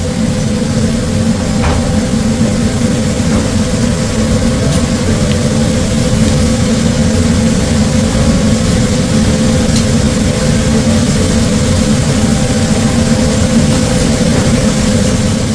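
Steady low rumble and hum of a commercial kitchen's gas range and exhaust hood ventilation running, with a steady hiss over it.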